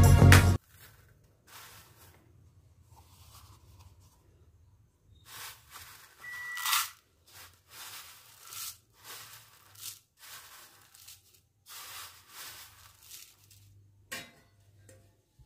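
Dry vermicelli strands rustling and crunching in short bursts as they are scooped by hand and with a plastic measuring cup from a stainless steel plate, loudest about six and a half seconds in. A faint low hum runs underneath.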